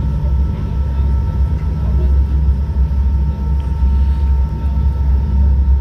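Ferry's engines running underway, a loud steady low rumble heard inside the passenger cabin, with a faint steady high whine over it.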